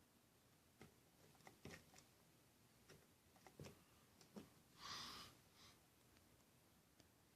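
Near silence in a small room: a few faint, scattered taps and one soft breath about five seconds in.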